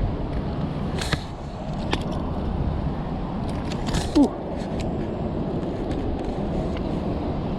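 Wind rumbling on the microphone, with a few sharp clicks and knocks and one short falling squeak about four seconds in.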